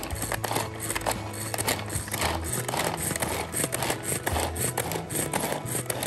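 Manual pull-cord food chopper worked with repeated pulls: a fast, continuous run of clicks and clacks as its spinning blades chop red onion in the plastic bowl.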